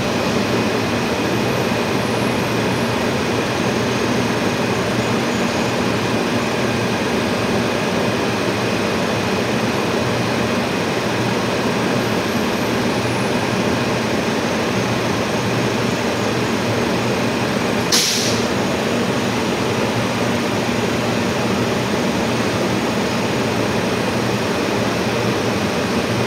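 LRT train standing at the platform, its onboard equipment humming steadily with a faint high whine. About eighteen seconds in there is one brief sharp hiss.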